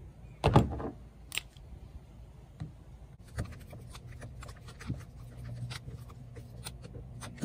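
Hands handling a plastic Hobie Mirage pedal-drive spine assembly: a knock about half a second in, then a run of small sharp clicks and ticks as a hex key works the set screw of the idler pulley.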